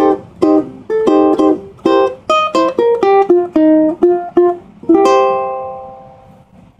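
Lanikai ukulele playing a jazzy blues melody in short single plucked notes. About five seconds in, a final note rings out and fades away, ending the tune.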